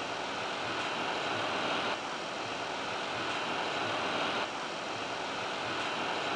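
Steady flight-deck background noise of an Airbus A330-300 in flight on approach, an even rushing hiss of airflow around the cockpit.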